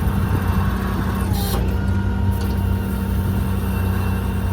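6.7 Cummins inline-six diesel running steadily with the PTO engaged, driving the hydraulic pump for the truck's service crane as it works. A brief hiss about a second and a half in.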